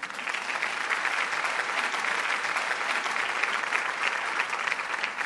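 An audience applauding: many hands clapping in a steady patter.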